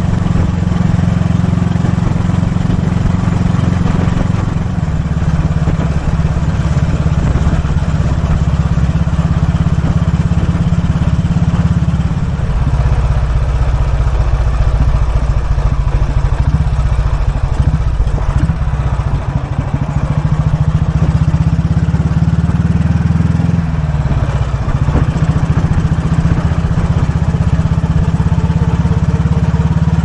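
1943 Royal Enfield WD/CO's 350cc overhead-valve single-cylinder engine running under way, a steady exhaust beat whose note changes a few times as engine speed shifts.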